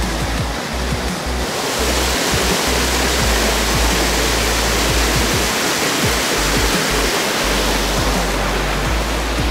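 Waterfall on a mountain stream: a steady rush of falling water that grows brighter about a second and a half in and eases back near the end.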